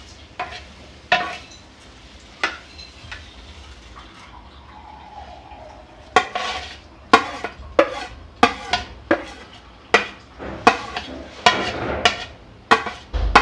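Steel spoon stirring vermicelli into boiled milk in a metal kadhai, clinking and scraping against the pan. A few scattered knocks at first, then from about six seconds in a steady run of clinks, about two a second.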